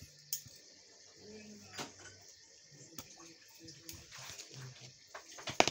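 Scattered light clicks and knocks of tools and metal parts being handled, with a quick cluster of sharper clicks near the end.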